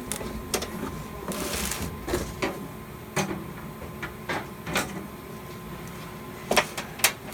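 Irregular clicks and knocks of tools and small parts being handled while working on a fire alarm control panel, with a short rustle about a second and a half in and two sharper knocks near the end.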